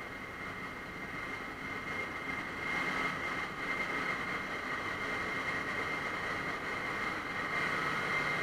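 Steady running noise of a container ship's engine-room machinery, with electric motor-driven pumps among it and a steady high whine over the din; it gets a little louder about three seconds in.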